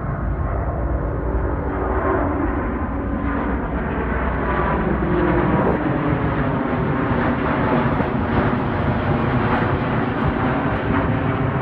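Airbus A350 jet airliner's twin Rolls-Royce Trent XWB turbofans at takeoff climb power, passing low overhead. A loud, steady jet rumble that swells slightly as the plane comes directly overhead, with faint whining tones in it.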